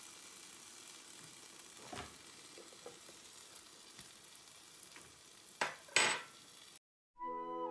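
Hot electric waffle iron sizzling steadily with cooked waffles on its plates, with light fork scrapes and taps as they are lifted off, and two sharp clatters near the end. After a brief drop to silence, flute music begins.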